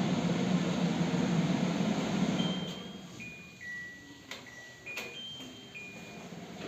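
Kitchen chimney's blower fan running with a steady hum, then dropping sharply about two and a half seconds in. It is followed by the control panel's electronic beeps, a short tune stepping between three pitches, with a couple of button clicks.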